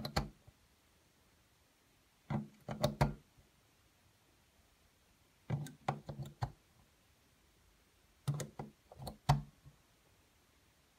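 AA batteries being pushed one after another into the plastic slots of a Powerex MH-C980 battery charger. There are four short bursts of clicks and knocks, each a battery pressed in against its contact and snapped down into place.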